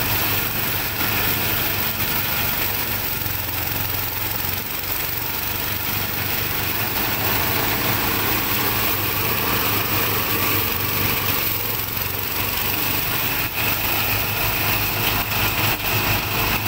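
Small single-cylinder petrol engine running steadily under load, driving a portable rice thresher as bundles of rice stalks are fed into its spinning drum. A few sharp ticks sound near the end.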